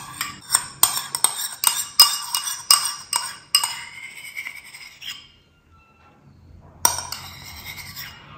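A spoon clinking against a bowl: quick ringing taps about three a second for the first three and a half seconds, then a pause and one more clink near the end.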